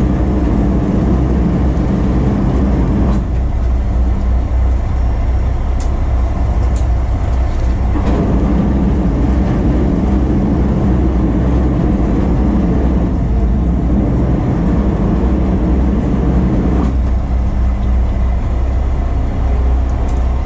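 Fishing boat's engine running with a steady low drone, its higher hum swelling and easing off every few seconds. A few light ticks sound in the middle.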